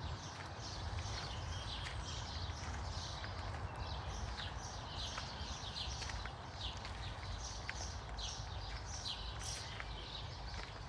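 Birds chirping: short, high, downward-sliding calls repeated over and over, over a low steady rumble.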